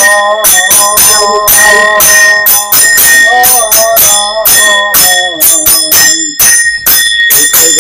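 A ritual hand bell rung rapidly in a steady rhythm, its ringing sustained, with voices chanting a devotional name-kirtan over it.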